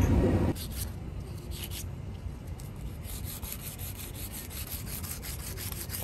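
Knife slicing and scraping through the taped insulation wrap on an air conditioner's refrigerant pipes: a run of short rubbing, rasping strokes, thickest in the second half. A low rumble fills the first half second.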